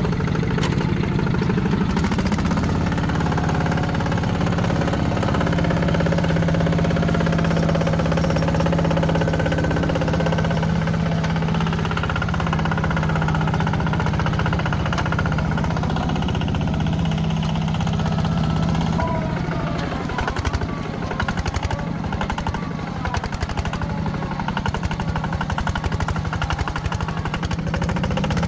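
Diesel engine of heavy machinery running steadily at high revs, with a fast clattering beat. About two-thirds of the way in its steady note weakens and the level dips briefly before it carries on.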